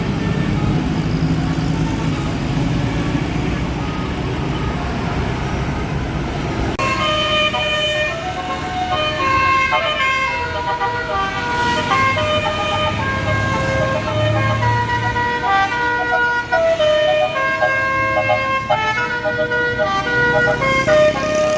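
Bus engine and traffic rumble, then about seven seconds in a tour bus's basuri (telolet) musical horn starts playing a quick melody of short stepped notes that keeps going.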